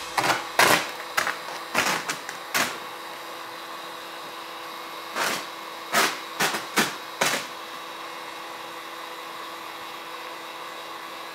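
Heat gun blowing steadily with a constant motor hum while vinyl boat wrap is heated and smoothed. About ten short, sharp crinkles or scrapes come in the first seven seconds or so, from the vinyl being handled.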